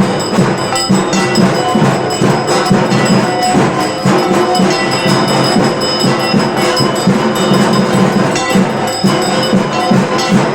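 Ritual Durga Puja aarati percussion: dhak drums beaten in a fast, dense rhythm, with bell-metal ringing over them.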